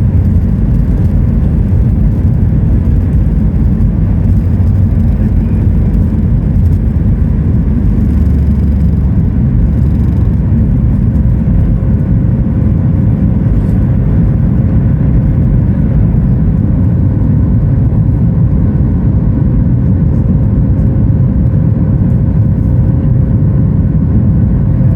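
Boeing 737 MAX 9 cabin noise from a window seat during takeoff: the CFM LEAP-1B jet engines running at high thrust, with a loud, steady rumble. A steady tone joins the rumble about halfway through.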